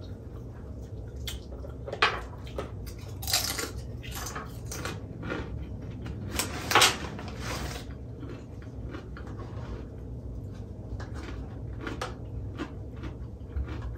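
Ruffles potato chips being picked through and crunched while eating, with light clinks of dishes: a string of short crackly bursts, the loudest about three and a half and seven seconds in.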